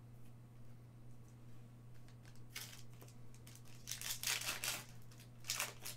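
Wrapper of a Panini Prizm trading-card pack crinkling and tearing as it is pulled open by hand. It starts about two and a half seconds in and is loudest in two bursts in the second half.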